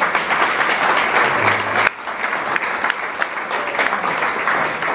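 Audience applauding: many people clapping their hands together at once, a dense steady patter of claps.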